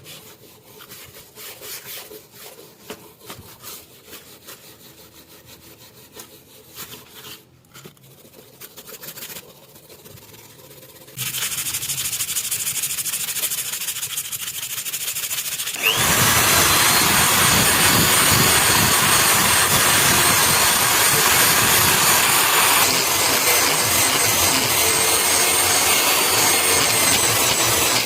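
Rusty steel knife blade being rubbed and scraped by hand in short strokes. The sound grows louder about a third of the way in, and a little past halfway a power tool starts, grinding or sanding the steel with a loud, steady noise and a faint high whine.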